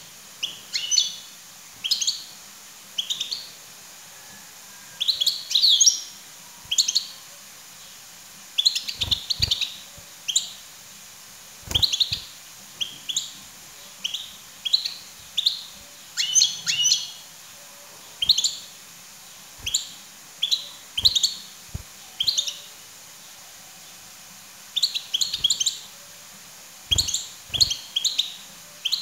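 European goldfinch calling: short, high twittering chirps in quick clusters, one cluster every second or two, with a few soft knocks between them.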